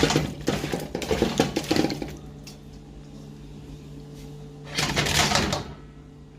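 Clatter of pots and utensils at a stove for about two seconds, then a low steady hum, and a brief hiss about five seconds in.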